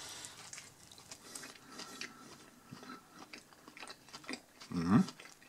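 A man chewing a mouthful of burger, with faint wet mouth clicks. Near the end comes a short, loud vocal sound from him.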